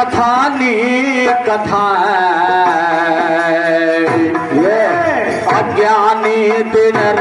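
Live devotional bhajan in folk style: a man sings long, wavering, drawn-out notes over melodic accompaniment with a hand drum.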